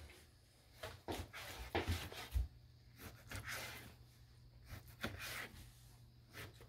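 A knife cutting raw pork on a cutting board: a few soft, irregular knocks and scrapes, thickest in the first half.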